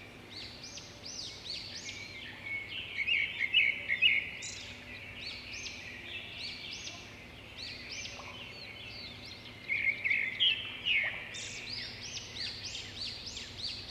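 Small birds chirping and calling over one another: a dense run of short rising-and-falling chirps, with louder clusters about three to four seconds in and again around ten to eleven seconds in.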